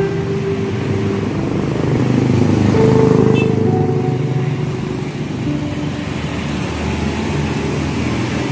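Road traffic: motor vehicle engines running steadily, one swelling louder as it passes about two to three seconds in, then easing off.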